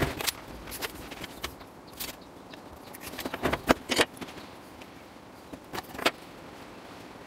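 Scattered clicks and knocks as a steel rule and a block of oak are handled and set down on a wooden workbench, the loudest pair of knocks about three and a half to four seconds in.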